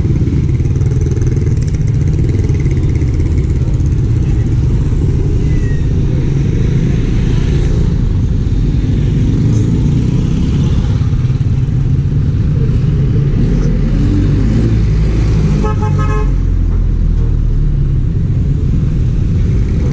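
Steady road and engine noise of a moving vehicle, heard from on board, with a brief horn toot about sixteen seconds in.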